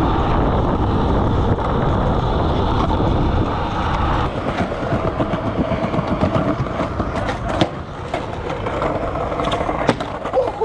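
Skateboard wheels rolling over stone paving slabs, a steady loud rumble, with a few sharp clicks in the second half.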